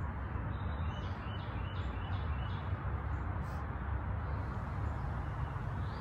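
Steady outdoor background noise, with a bird chirping a quick run of about six short notes between about one and two and a half seconds in.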